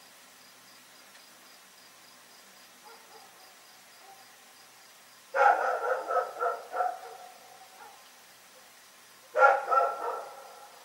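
Dog barking: a quick run of barks about five seconds in, then a shorter run of about three barks near the end. A faint, steady chirring of crickets continues underneath.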